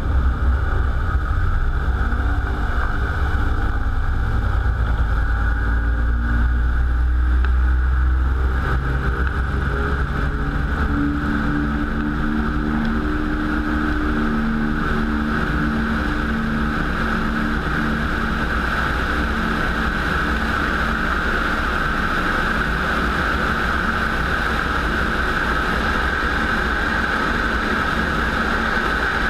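WWII piston-engined warbird running steadily: a heavy low rumble, with steadier engine tones coming through about eleven seconds in.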